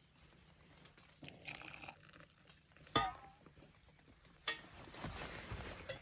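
Camp cooking gear clinking: a sharp metal clink about three seconds in that rings briefly, and another about a second and a half later. A steady hiss follows, as breakfast is being cooked.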